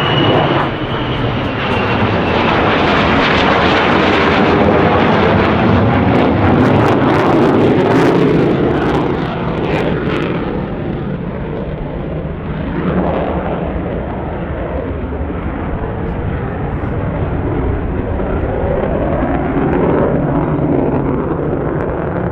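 An F-35A fighter's jet engine on a low pass with the undercarriage down: a loud jet rush with a high whine, loudest for the first several seconds. About ten seconds in the high end falls away as it moves off, leaving a deeper rumble with a slowly sweeping, phasing tone.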